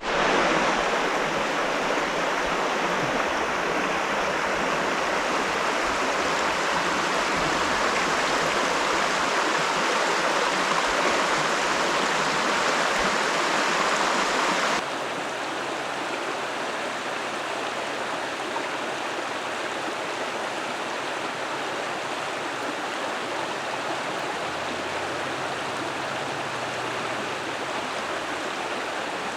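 Creek water rushing steadily. The level steps down abruptly about halfway through and then runs on evenly.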